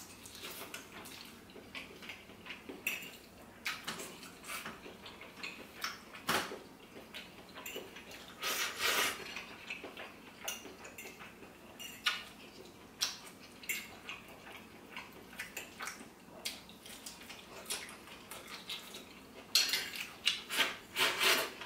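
Cutlery clicking and scraping against a plate as food is scooped up, in scattered short clinks with denser runs about nine seconds in and near the end, along with chewing sounds.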